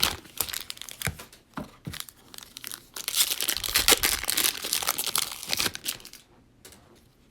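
Cellophane wrapper of a Prizm football cello pack being torn open and crinkled, with scattered sharp crackles and clicks. The crinkling stops about six seconds in, leaving a few faint clicks.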